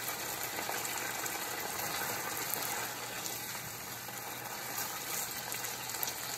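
Chicken and vegetables in Kung Pao sauce sizzling steadily in a saucepan on the stove while they are stirred with a silicone spatula.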